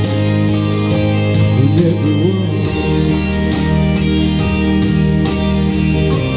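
Instrumental music led by guitar, playing sustained chords with a chord change a little under halfway through.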